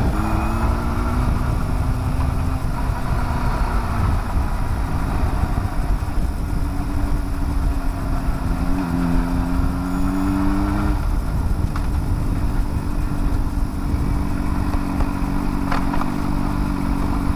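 Honda CBR600RR's inline-four engine running under heavy wind rush on the microphone as the bike is ridden. The engine note rises about nine seconds in, drops about two seconds later and then holds a steady low note as the bike rolls slowly.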